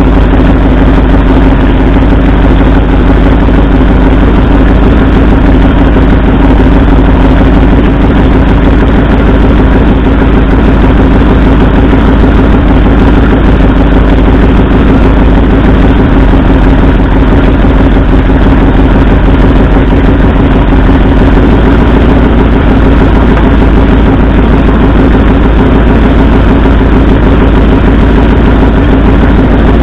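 Ford 351 Cleveland V8 idling loud and steady at close range, misfiring on two dead cylinders during a plug-wire-pulling cylinder contribution test.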